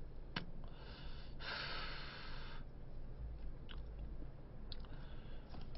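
A man drawing on a cigarette: a faint click, then a breathy hiss of about two seconds as he inhales the smoke.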